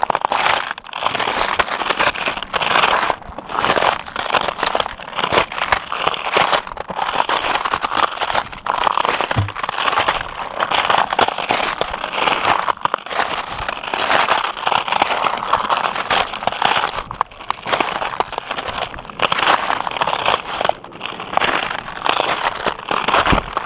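Footsteps crunching over rough, rubbly cooled lava rock, a crunch with each step one after another.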